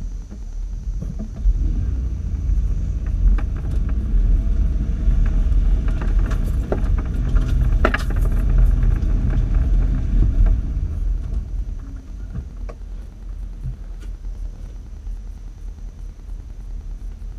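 Off-road vehicle's engine running low as it drives slowly along a rough trail, heard from inside the cab, with scattered clicks and rattles. It gets louder about a second and a half in and eases off again about ten seconds in.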